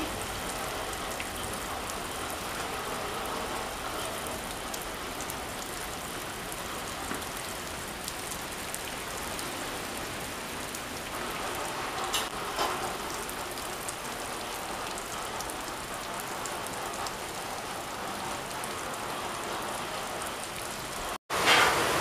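Steady rain falling and pattering on surfaces. It cuts out for a moment near the end and comes back heavier and louder.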